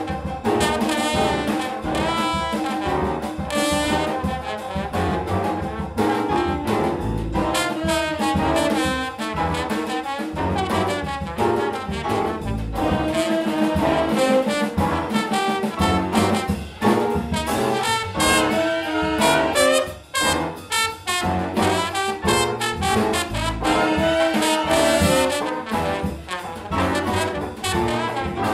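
Big band jazz: a trombone soloing over the rhythm section, with drums keeping time and horns playing behind it.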